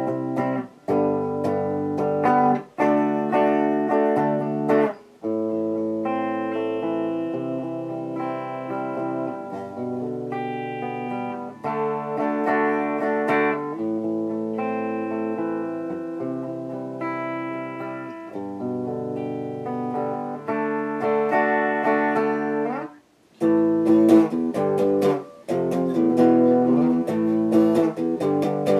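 Guitar music: ringing chords and single-note lines with short breaks between phrases, and one near-silent pause about 23 seconds in after an upward slide.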